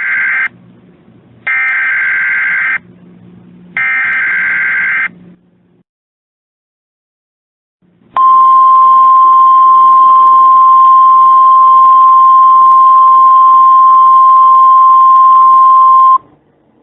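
Emergency Alert System SAME header: three short bursts of warbling two-pitch digital data, each about a second long. After a pause of about three seconds, a single steady 1050 Hz attention tone sounds for about eight seconds and cuts off suddenly.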